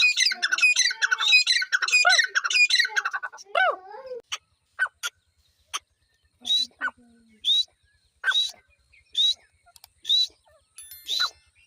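Grey francolin calling: a fast run of harsh, chattering notes for the first three and a half seconds, then single sharp call notes repeated about once a second.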